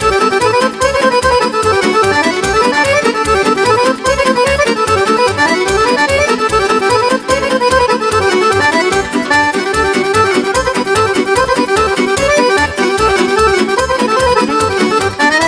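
Accordion playing a fast instrumental solo in a Romanian folk dance tune, quick running melody over the band's steady, driving beat.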